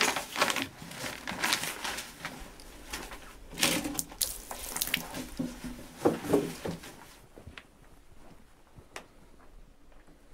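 Paper bag rustling and crinkling as it is handled, with scattered light clicks and knocks; it grows quieter for the last few seconds, leaving a couple of isolated clicks.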